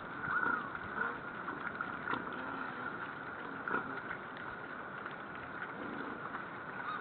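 Wild boar herd feeding on grain scattered on snow: scattered crunching and chewing clicks and a few short grunts, over a steady background hiss.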